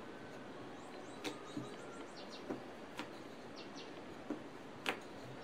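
Wooden rolling pin rolling out chapathi dough on a marble board, quiet, with a few light knocks of the pin against the board; the loudest come about a second in and near the end. A bird chirps in quick runs of three in the background.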